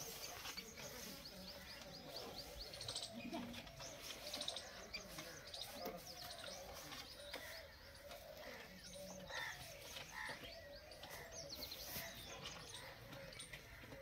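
Alexandrine parakeet chicks chirping: quick, high-pitched cheeps in short runs, repeated throughout.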